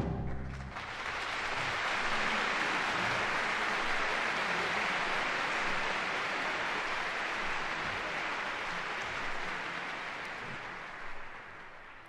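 Live concert audience applauding as the band's last chord dies away. The clapping builds over the first second or two, holds steady, then fades out near the end.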